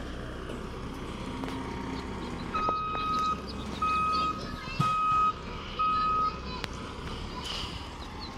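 Backup alarm of a construction vehicle sounding four steady single-pitch beeps about a second apart, starting a few seconds in: the machine is reversing.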